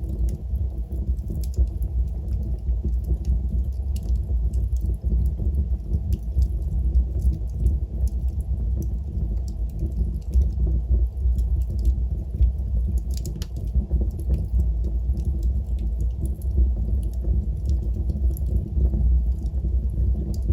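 Wood fire burning in a fireplace: a steady low rumble of flames with many small, scattered crackles and snaps.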